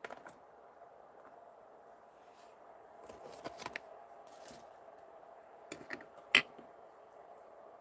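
Small clicks and taps of stamping supplies being handled on a craft desk, a stamp and a clear plastic stamp case picked up and set down, with one sharp knock about six seconds in. A faint steady hum runs underneath.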